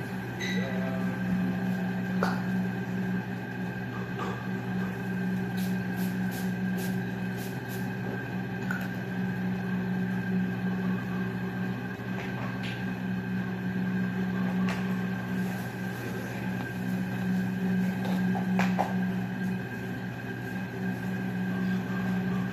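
A steady low hum with a faint high whine. A scattering of light clicks and knocks runs through it.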